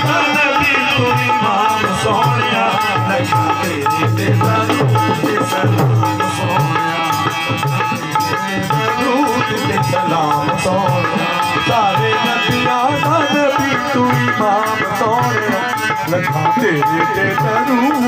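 Qawwali music: a harmonium and a hand drum accompanying men singing, amplified through microphones.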